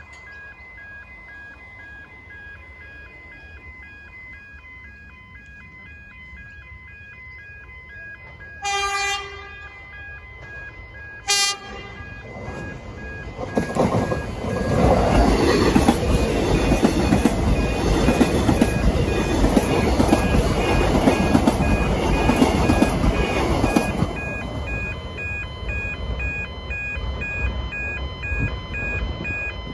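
Alstom X'Trapolis electric train sounding its horn, one note of about a second and then a short toot, then passing close by with a loud rush of wheels on rail that eases about two-thirds of the way through. Electronic level-crossing bells ding steadily throughout.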